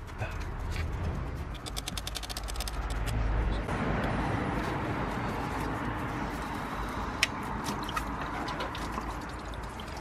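Hands working among rubber hoses and a plastic wiring loom in a car engine bay, with scattered clicks and rattles, a quick run of clicks about a second and a half in and one sharp click near the end, over a steady hiss.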